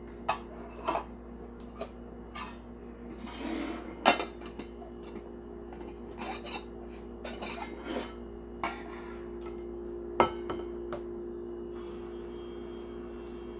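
Small stainless-steel toy pots, lids and utensils clinking and clattering as they are handled, with scattered sharp knocks, the loudest about four and ten seconds in. Near the end, water starts running from the toy sink's faucet.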